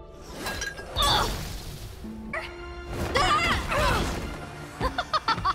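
Cartoon fight sound effects over music: a crash about a second in, wordless cries of effort, then a quick series of sharp hits near the end.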